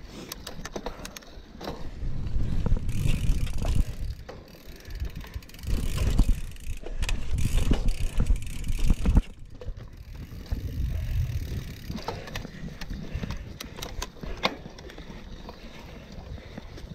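Mountain bike ridden along a forest trail: a low rumble from the tyres over the ground comes and goes in surges, with frequent sharp clicks and rattles from the bike over bumps.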